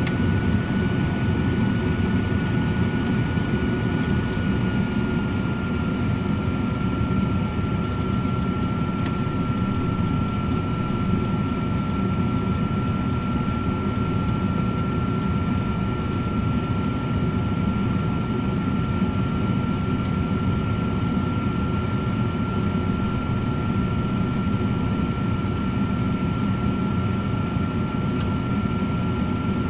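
Cosori 13-quart air fryer oven running with steaks inside: a steady fan whir with a thin whine that drops slightly in pitch about five seconds in, and a few faint ticks.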